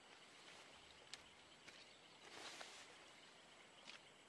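Near silence with faint outdoor hiss, broken by one sharp click about a second in and a couple of soft rustles, from a tarp being handled and pulled over a pickup bed.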